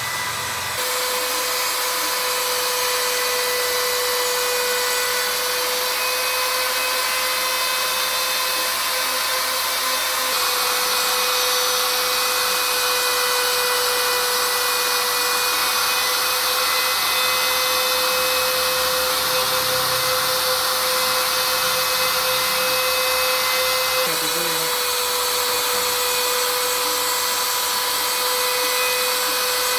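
The spindle motor of a DIY CNC router runs at a steady high-pitched whine with a hiss of cutting over it, while the machine works through a job. The tone shifts slightly about ten seconds in and again near twenty-four seconds.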